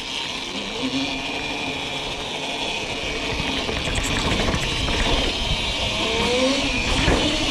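Cake electric dirt bikes riding at low speed, their motors whining faintly, with the tyres and chassis rattling over grass, stone steps and pavement. Wind rumbles on the microphone, and a short rising motor whine comes near the end.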